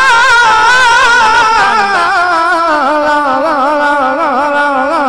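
A man's voice singing a long wordless, ornamented phrase of a naat recitation. The melody wavers continually and slides gradually down in pitch over a few seconds.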